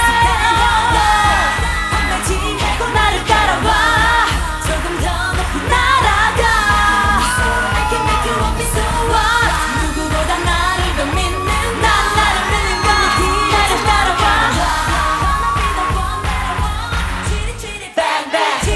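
K-pop dance-pop song playing with a steady heavy beat and singing over it; the bass and beat drop out near the end.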